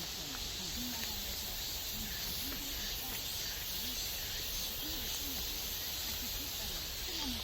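Valley stream water rushing over rocks in a steady hiss.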